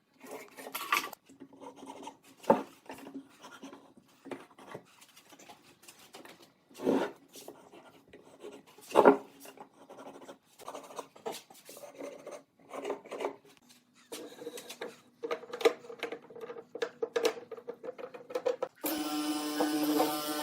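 Hand work on wood: irregular scraping, rubbing and rasping strokes with sharp knocks in between. Near the end a power tool starts up and runs with a steady whine.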